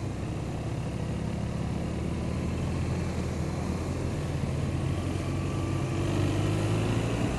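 Steady engine and road noise of a vehicle driving, with the engine note rising slightly and getting a little louder in the last couple of seconds.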